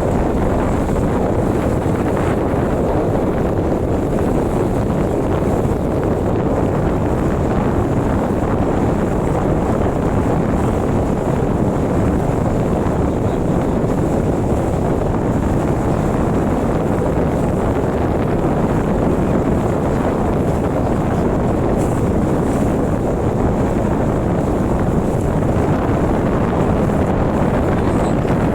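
Wind buffeting the microphone aboard a moving boat, mixed with the rush of water. It is a loud, steady noise with no pauses.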